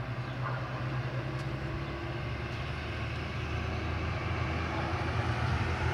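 Road traffic passing on a city street: a steady vehicle hum with a low engine drone, slowly growing louder.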